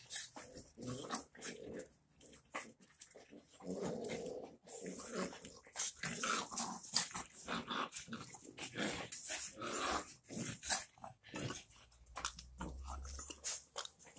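French bulldog puppies and adults play-wrestling, with growls and short noisy huffs coming in quick, irregular succession, loudest in the middle.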